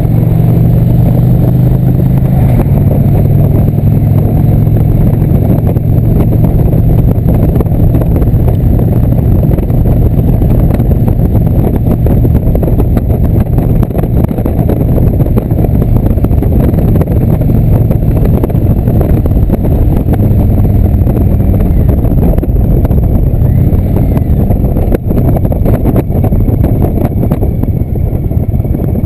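Indian V-twin cruiser motorcycle running at steady road speed, its engine note under heavy wind rumble on the handlebar-mounted camera's microphone.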